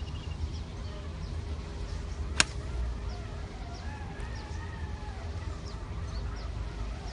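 A golf club strikes the ball once with a sharp click about two and a half seconds in. Birds chirp and call throughout over a low, steady rumble.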